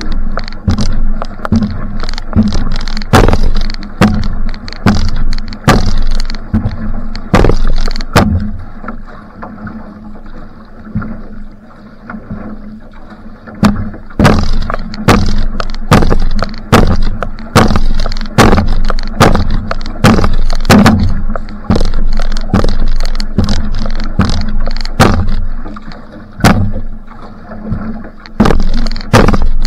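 Outrigger canoe sprint paddling: a fast, even rhythm of splashing strokes as the single-blade paddle catches and pulls through the water, about three strokes every two seconds, over a steady low rumble of water on the hull. The strokes grow quieter and sparser about a third of the way through, then pick up again.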